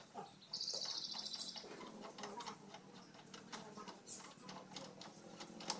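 Socket ratchet wrench clicking as it is worked on a bolt: a fast run of clicks for about a second near the start, then scattered single ticks.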